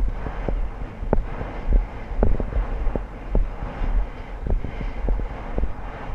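Wind buffeting a GoPro's microphone while riding a horse, with uneven low thumps from the horse's movement and a run of sharp clicks and knocks, a few a second.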